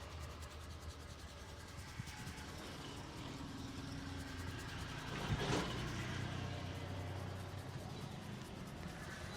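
Street traffic: steady low engine noise from passing vehicles, with one vehicle going by close about five and a half seconds in.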